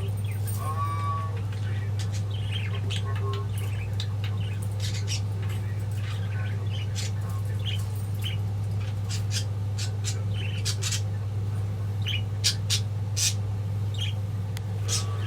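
Pet budgerigars chirping and squawking in many short, sharp calls, a few louder ones near the end, over a steady low hum.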